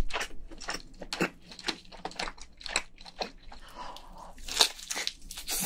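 A person biting and chewing soft cooked crayfish meat: an irregular run of short mouth smacks and clicks.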